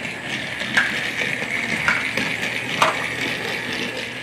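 Battery-powered Trackmaster Thomas toy engine running along plastic track: a steady electric motor whir with wheel rattle, and three sharp clicks about a second apart.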